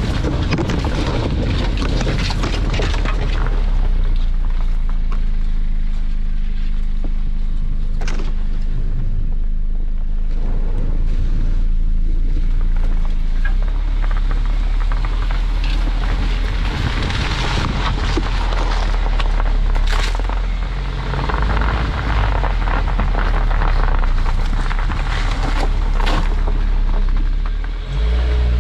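A vehicle on all-terrain tyres driving through loose sand: a steady low engine and tyre rumble, with occasional sharp clicks and knocks.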